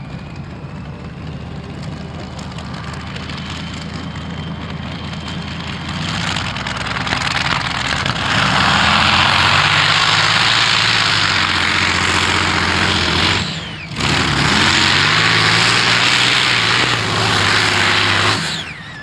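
Modified pulling tractor's engines building up with a rising whine, then running at full power for a pull. The sound drops out briefly about 14 seconds in, comes back at full power, and cuts off suddenly near the end.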